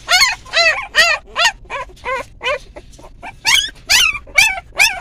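A litter of young pit bull puppies whimpering and yipping: many short, high-pitched cries in quick succession, thinning out for about a second midway and growing louder again near the end.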